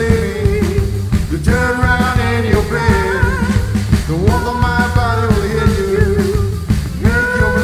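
Live rock band playing: electric guitars and drum kit, with a man singing long held notes over a steady beat.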